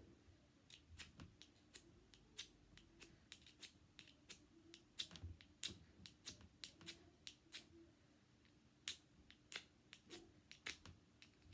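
A survival kit's flint and steel being scraped again and again, a string of short, sharp scratches at an uneven pace, about two a second. These are repeated strikes that are failing to work.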